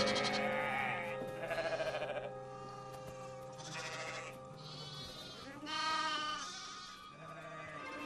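Sheep and lambs bleating, about four calls a second or so apart, over soft background music with held notes.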